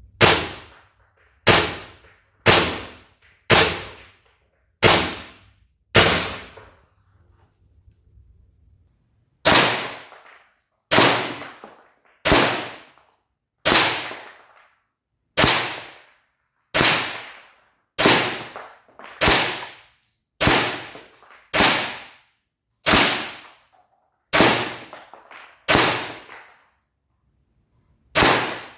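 WE M4A1 V.3 gas blowback airsoft rifle firing single shots, about twenty sharp cracks with the bolt cycling on each, roughly one every second or so, with a pause of about three seconds a third of the way in.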